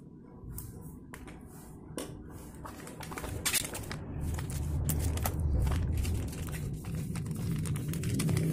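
Plastic body-wash sachet being handled and squeezed: crinkling and small clicks, with a low rumble that grows louder in the second half.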